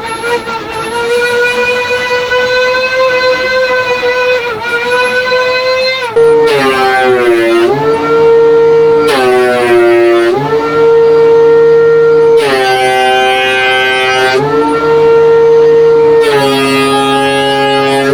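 Trim router running at full speed with a steady high whine, then cutting in several passes to flatten a board in a router jig. On each pass the pitch sags under load with a rush of cutting noise, then climbs back.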